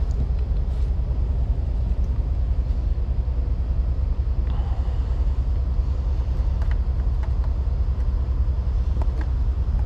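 Steady low rumble of an idling engine, with a few faint clicks.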